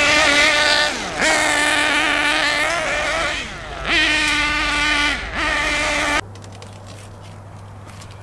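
Kyosho MP9 buggy's KE21 nitro engine, fitted with a bigger manifold and pipe, running at high revs with a steady high pitch that drops and picks up again as the throttle is lifted, about a second in and again around three and five seconds in. The owner says it is running very rich because the high-speed needle is backing itself out. The engine sound cuts off abruptly about six seconds in, leaving a low hum.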